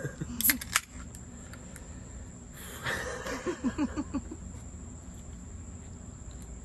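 A soda can cracked open, a few sharp clicks with a short bright fizz about half a second in. A brief burst of short vocal sounds follows about three seconds in, over the steady chirring of night insects.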